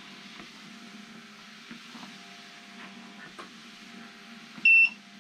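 DripeX walking-pad treadmill running with a steady electric-motor hum under soft footsteps on the belt. Near the end the treadmill gives one loud, short, high beep.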